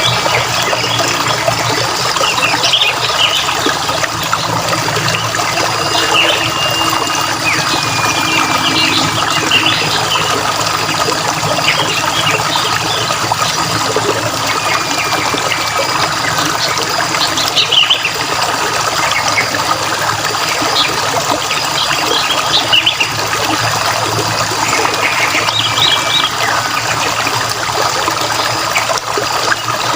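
Steady trickling, running water, with birds chirping every couple of seconds: short chirps and a few thin, level whistled notes over the water.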